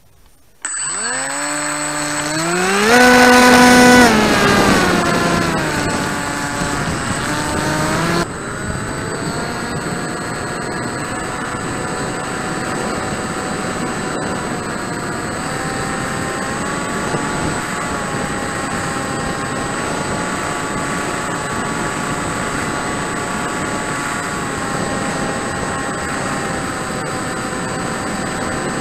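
Motor and propeller of a radio-controlled Drifter ultralight model, heard close from its onboard camera. It starts suddenly and rises steeply in pitch as it spools up, is loudest for about a second, then settles lower. After that it holds a steady drone with small steps in pitch as the throttle changes, with a thin high whine above it.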